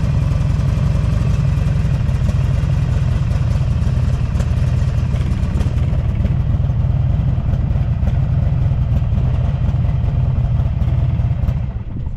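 Buell XB12SS Lightning's air-cooled 1203 cc V-twin idling steadily through a Strike Weapon aftermarket muffler, a deep low rumble with no abnormal noise. Near the end the engine is switched off and dies away.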